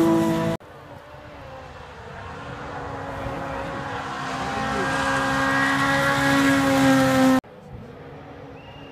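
Rally car engines held at high revs on a gravel stage. A loud engine cuts off about half a second in. Then an approaching car's engine note grows steadily louder for about seven seconds and stops abruptly, leaving a fainter engine in the distance.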